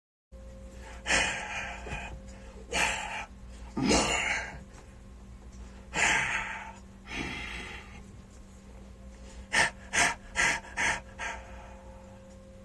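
A person making breathy vocal noises into a studio microphone: gasps and huffs, one sliding down in pitch. They end with a run of five quick, sharp puffs of breath about half a second apart.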